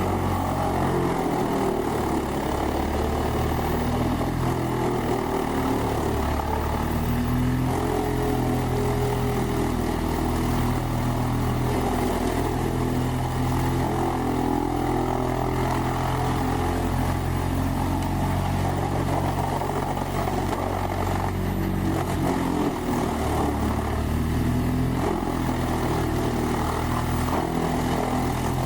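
Large engine of a whole tree chipper running steadily under load, its pitch shifting several times as the load changes.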